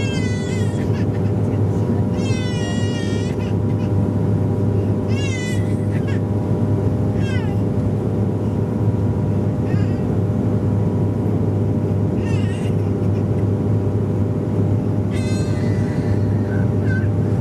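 Steady cabin drone of a Bombardier DHC-8 Q400's Pratt & Whitney PW150A turboprops and six-bladed propellers on approach, a deep hum with a few fixed higher tones. High wavering cries from a small child break in about eight times.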